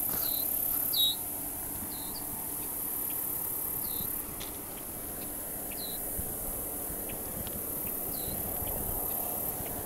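Outdoor field ambience: a steady high-pitched insect buzz, with a bird's short chirps repeating every second or two over a low rumble.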